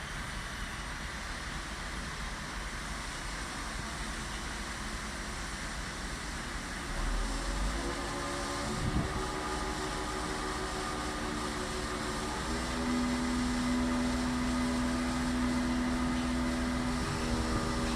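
A chainsaw engine running over a steady background hiss. Its pitched note comes in about eight seconds in and rises to a higher, louder, steady pitch around twelve seconds.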